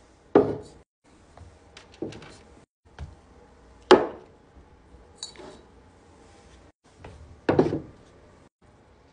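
Glass bottles and a ceramic ornament being set down and shifted on a wooden tabletop: four sharp knocks, the loudest about four seconds in, with lighter taps and rubbing between.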